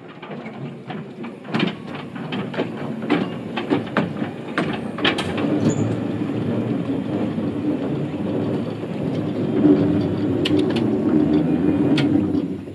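Small electric mine locomotive running along narrow-gauge track and coming closer. Its wheels clatter and knock over the rails over a steady motor hum, growing louder before cutting off sharply near the end as it stops.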